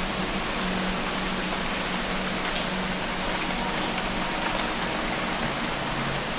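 Steady, dense rain falling, a continuous hiss of drops, with a faint sustained low tone underneath.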